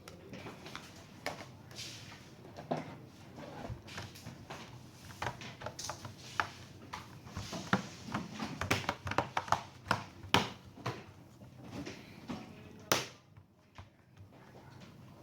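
Irregular clicks, taps and light knocks of laptop parts being handled and worked on during a battery replacement, thickest in the middle, over a low steady hum.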